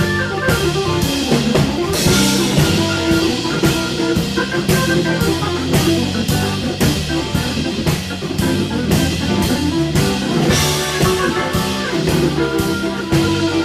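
Rhythm-and-blues band playing an instrumental: drum kit keeping a steady beat under electric guitar and Hammond organ.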